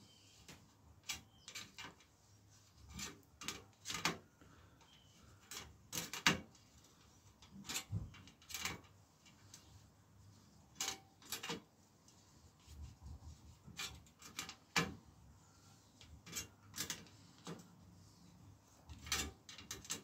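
Spoke key turning the spoke nipples of a newly laced bicycle wheel one full turn at a time, early in tensioning while the spokes are still loose: irregular sharp clicks and light rubbing, roughly one a second.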